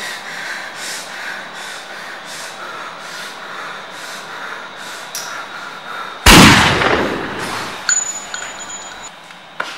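A single pistol gunshot about six seconds in, very loud and fading away slowly. It is followed by a thin, high, steady ringing tone lasting about a second.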